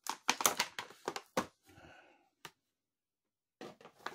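Plastic blister packaging and its cardboard backing crinkling and crackling in gloved hands as a torn, stubborn package is pried open. The crackles come fast for the first second and a half, then a soft rustle and one click, then about a second of silence before the crackling picks up again near the end.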